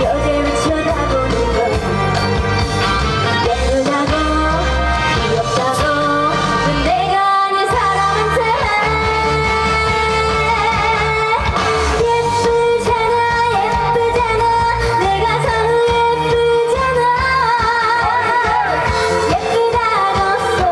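A female trot singer singing live over a pop backing track with a steady beat. The low accompaniment drops out briefly about seven seconds in.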